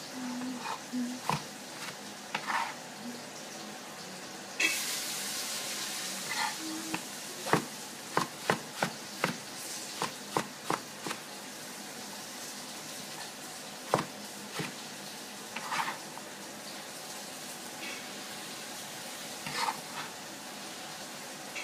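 A Chinese cleaver chopping eggplant on a plastic cutting board: sharp knocks of the blade striking the board, irregular at first, then a quick run of chops. About five seconds in there are a couple of seconds of steady hiss.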